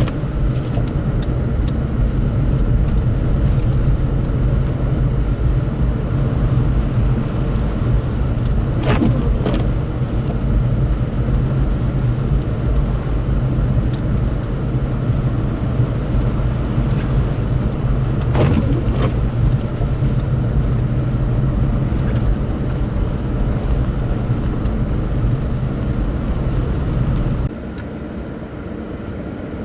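A vehicle engine running steadily with a low rumble, with a few brief knocks or scrapes. Near the end the sound drops suddenly to a quieter rumble.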